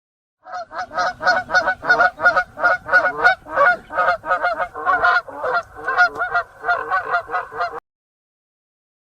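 Goose honking in a rapid run of short calls, about three or four a second, stopping abruptly about a second before the end.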